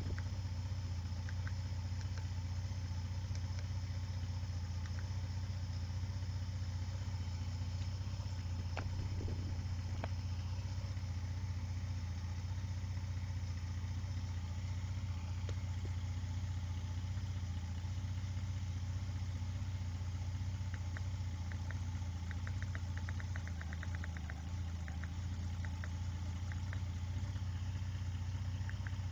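Senator's C30NE straight-six engine idling steadily, running while the scan tool reads its live data. A run of light clicks comes about three quarters of the way through.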